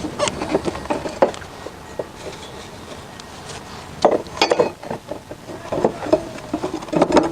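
Metal clinks, knocks and rubbing as a steel mulching blade is handled and fitted onto a lawn mower's blade mount, with a cluster of knocks about four seconds in and more near the end.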